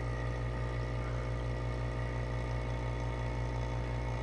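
Vacuum pump running steadily with an even low hum, evacuating the chamber.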